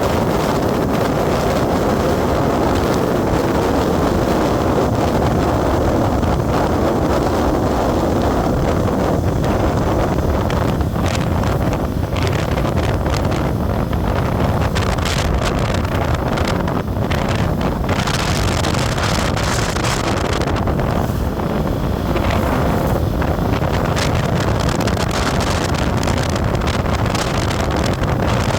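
Wind buffeting the microphone over the steady running noise of a moving road vehicle.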